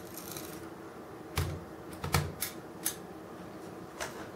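A handful of sharp clicks and light knocks, about five spread over a few seconds, from a diecast model crane and its small parts being handled.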